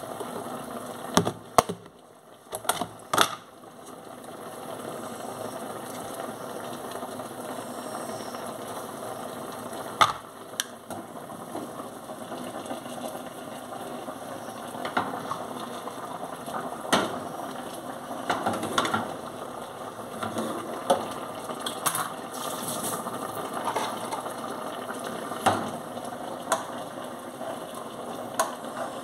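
Kitchen handling sounds: scattered clicks and knocks of dishes, utensils and containers being moved on a counter, over a steady background noise.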